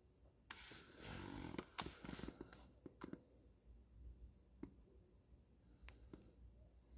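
Close rustling and handling noise with sharp clicks for about two and a half seconds, starting about half a second in, then a few isolated light clicks.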